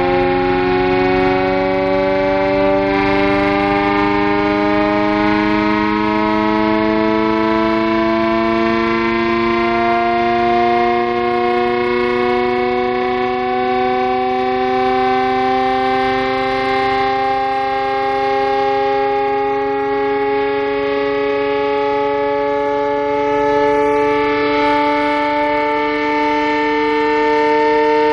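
Vintage WWII air raid siren sounding a loud, steady chord of several tones that creeps slowly upward in pitch.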